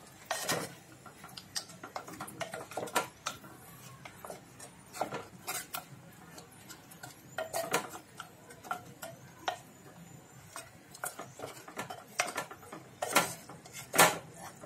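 Wooden spatula scraping and knocking against the inside of a clay cooking pot (handi) as boiled mutton is stirred into the masala. The scrapes and taps are irregular, with louder knocks now and then, the loudest near the end.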